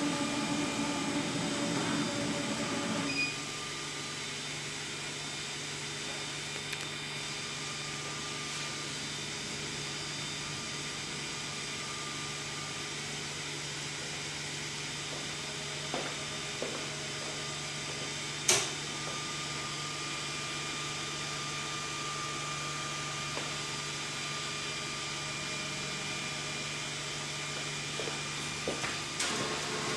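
SK UV6145 UV flatbed inkjet printer running with a steady machine hum and several steady tones. A louder hum stops about three seconds in, and a single sharp click comes about halfway through.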